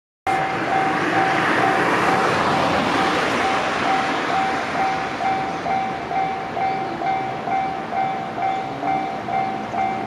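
Japanese railway level-crossing warning bell ringing about twice a second. Over the first few seconds a train rushes past, and its noise fades, leaving the bell.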